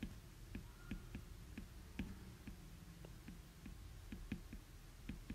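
Faint clicks of a stylus tapping on a tablet screen while writing a word by hand, several small ticks a second at an uneven pace.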